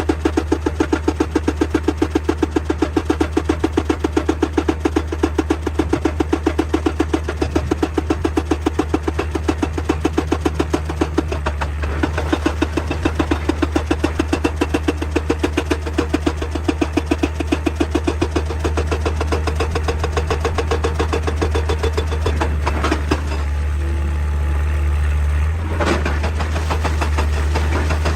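Excavator-mounted hydraulic rock breaker hammering rock in a rapid, steady rhythm over the excavator's diesel engine drone. The hammering stops about 23 seconds in, leaving the engine running.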